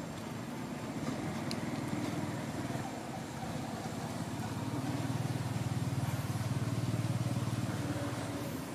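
A motor vehicle engine running steadily with a low, pulsing rumble, growing louder about halfway through.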